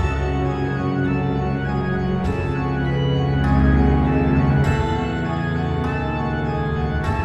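Organ-led instrumental music made in BandLab: sustained organ chords over a deep bass line, with several crash hits along the way and a slight swell about halfway through.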